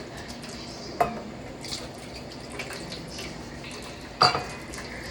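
Kitchen dishes and utensils clinking: two sharp knocks, one about a second in and a louder one near the end, over a low steady background.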